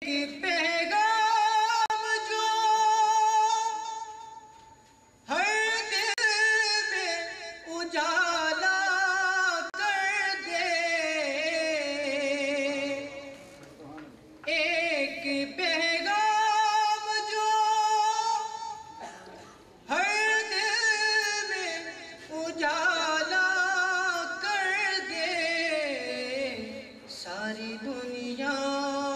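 A young man's solo voice singing a naat, a devotional poem in praise of the Prophet, into a microphone with no accompaniment. He sings long phrases with held, wavering notes and ornamented runs, with short pauses for breath between them.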